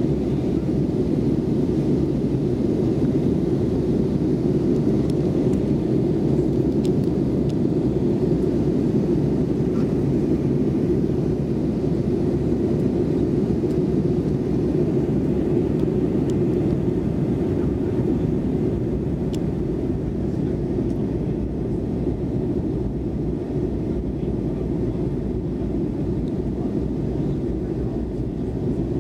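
Steady low rumble inside an Airbus A320 airliner's cabin in flight: engine and airflow noise, slightly easing in the second half.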